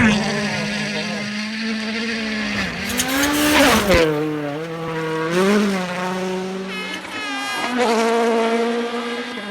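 Rally cars at full throttle, the engine pitch climbing and dropping again and again through gear changes and lifts. A loud rush of noise comes about three to four seconds in.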